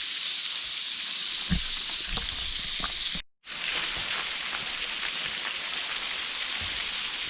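Small waterfall splashing steadily, a hissing rush of falling water, with a soft knock about a second and a half in. The sound cuts out completely for a moment a little over three seconds in, then resumes.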